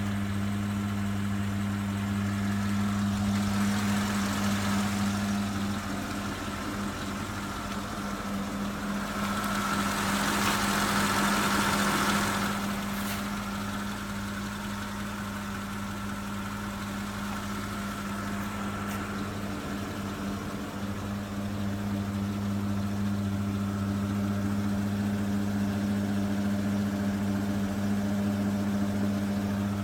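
2008 Porsche Cayenne Turbo's 4.8-litre V8 idling with a steady low hum, which the owner likens to a power steering pump noise. A louder rushing sound swells in twice, around four and ten seconds in.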